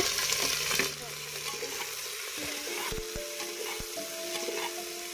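Onions, whole garlic and dried red chillies sizzling in very hot mustard oil in an aluminium pressure cooker. The sizzle is loudest as the onions go in and eases off about a second later, continuing more quietly as a spoon stirs them.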